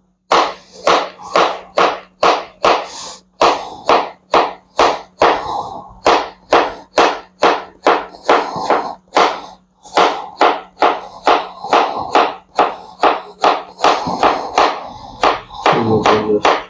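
Knife chopping bottle gourd on a cutting board: quick, even strokes at about three a second.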